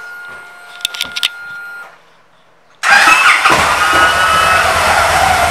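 2015 Victory Magnum's V-twin engine started about three seconds in and settling into a steady idle. Before it, a few clicks and a short, steady, high whine.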